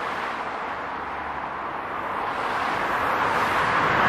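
Jet engine noise from a Boeing 777-200ER's Rolls-Royce Trent 892 engines at takeoff thrust as the airliner climbs out. It is a steady rushing sound that grows louder over the last second or so as the aircraft comes closer.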